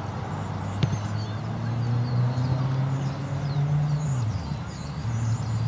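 An engine running with a steady low hum. It rises slightly in pitch, drops away about four seconds in, and comes back a second later. Faint bird chirps sound high above it, and one sharp thump comes about a second in.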